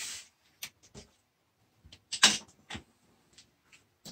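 Light clicks and knocks of die-cast toy cars being set into a plastic track's starting gate, with one louder clatter a little over two seconds in.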